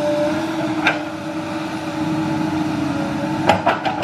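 Komatsu PC200 hydraulic excavator's diesel engine and hydraulics running with a steady hum as it swings and lowers a bucket of mud, with a sharp knock about three and a half seconds in.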